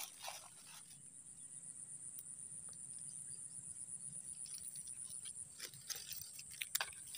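Quiet swamp ambience: a steady high-pitched insect drone, a little weaker after about five seconds, with a few faint clicks and rustles near the end.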